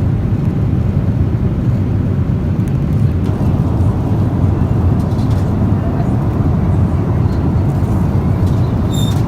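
Steady roar of a Boeing 777-300ER's engines and airflow heard inside the economy cabin, deep and even, with a brief high tone just before the end.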